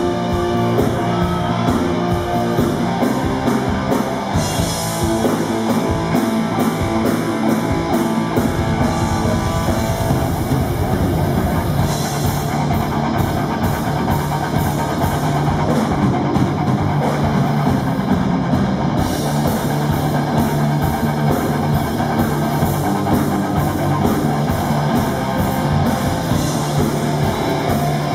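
Live hard rock band playing loud: electric guitars over a drum kit, heard through the club's PA.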